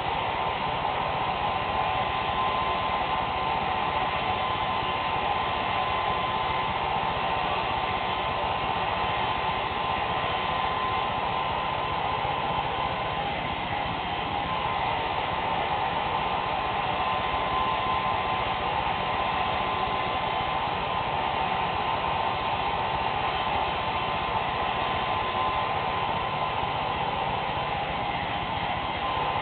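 Handheld hair dryer running steadily, a constant rush of air with a steady whine, as it is played over hair.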